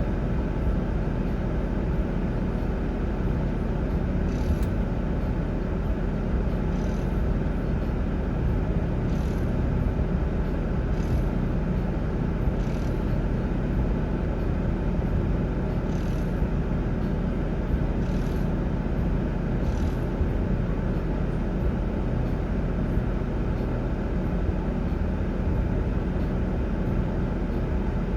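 Steady low rumble of a running vehicle, even in level throughout, with faint short high ticks every two seconds or so during its first twenty seconds.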